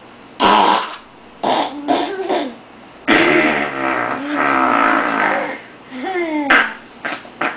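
Mouth-made fart sounds, blown raspberries with the lips: a string of short buzzing blasts with one long one of about two and a half seconds in the middle.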